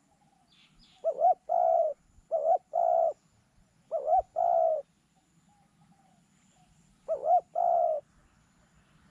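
A dove cooing four times, each phrase two short rising coos followed by a longer held coo, with a pause of about two seconds before the last one.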